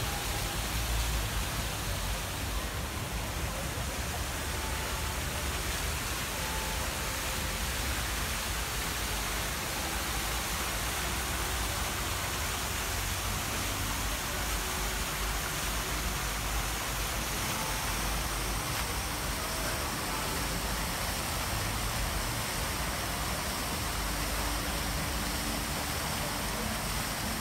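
Steady hissing wash of outdoor city-square ambience with a low rumble beneath it and faint, distant voices.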